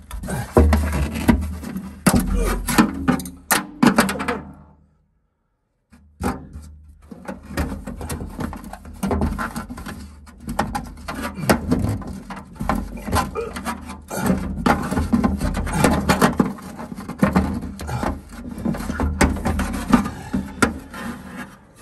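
Screwdriver working screws in the plastic inner wall of a refrigerator: irregular scraping and rubbing with many sharp clicks and knocks of metal on the screw heads and plastic. The sound cuts out completely for about a second around five seconds in.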